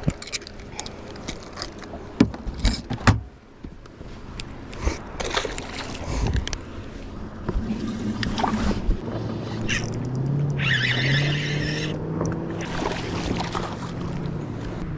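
Knocks and rattles of gear being handled on a bass boat's deck, then a steady low motor hum that steps up in pitch about ten seconds in, with a short hiss of water near the middle.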